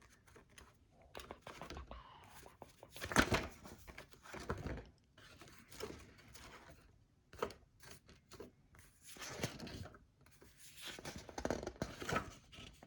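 Paper and plastic packaging being handled: irregular rustling and crinkling with small clicks, the loudest about three seconds in.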